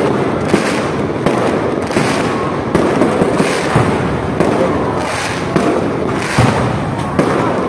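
Many fireworks going off at once: aerial shells bursting overhead in a dense, unbroken barrage of bangs and crackles.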